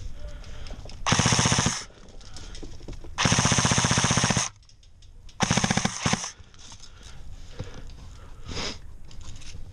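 Three full-auto bursts from an Echo 1 Troy TRX10 airsoft electric gun, each a rapid run of shots, the middle burst the longest at over a second. A short, fainter burst follows near the end.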